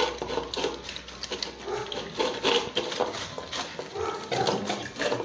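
Two large dogs eating from plastic bowls, a dish of boiled chicken necks and heads in broth: irregular, rapid chewing and slurping.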